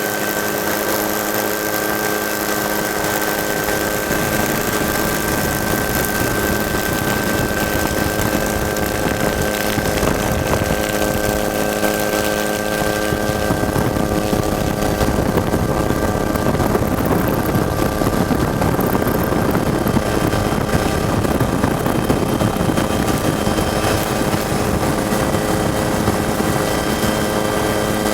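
A motor vehicle engine running at a steady pitch, with a louder, rougher stretch of about ten seconds in the middle.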